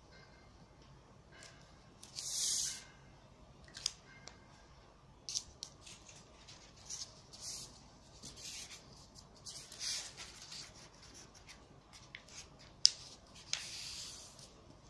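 Square of origami paper rustling and sliding on a tabletop as it is handled and folded into a triangle, in short scrapes with a few sharp clicks as the creases are pressed.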